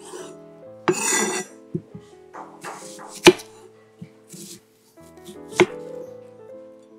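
Chef's knife slicing through a peeled onion on an end-grain wooden cutting board: a crunching slice about a second in, then separate cuts, with sharp knocks of the blade on the board about three and five and a half seconds in. Soft background music plays underneath.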